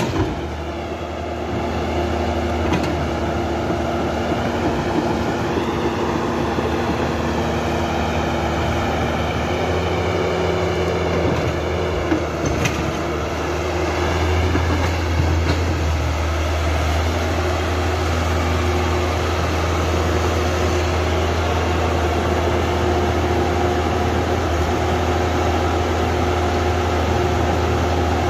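Huina radio-controlled model excavator's small electric motors and gearboxes whirring steadily as it swings its turret and moves its arm and tracks.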